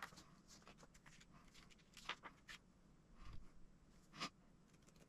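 Near silence, with a few faint rustles and light clicks as instruction-manual pages are turned and a small plastic part is handled, the clearest about two seconds in and again about four seconds in.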